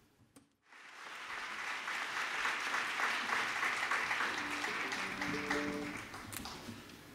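Audience applause that swells up about a second in, holds, and fades away near the end, with a few sustained instrument notes sounding underneath it around five seconds in.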